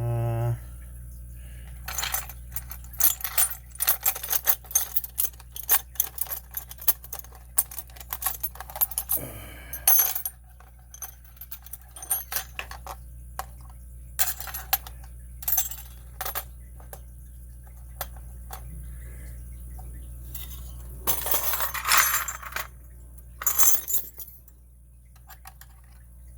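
Hard metal clicks and clinks from a rusty padlock and its small parts being handled and worked apart, sharp separate knocks spread throughout, with a denser scraping rattle near the end.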